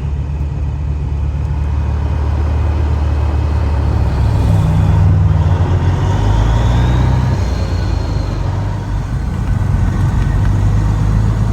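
Road vehicle engine running steadily on the road, a low drone whose pitch steps up and down a few times, with a faint whine rising and falling midway.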